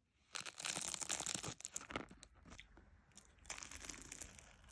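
Crunchy food being bitten and chewed, in two spells of crunching, the first about a second and a half long and the second near the end.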